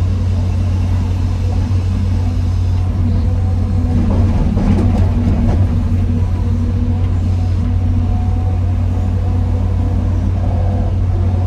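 Excavator's diesel engine running steadily under load, with a louder stretch of rattling and knocking near the middle.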